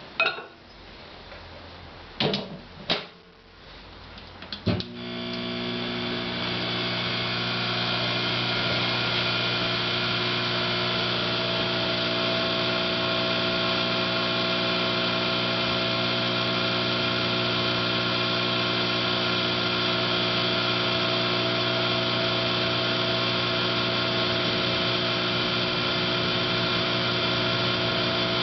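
Sharp Half Pint compact microwave oven: a few sharp clicks as it is set, then about five seconds in it starts and runs with a steady hum.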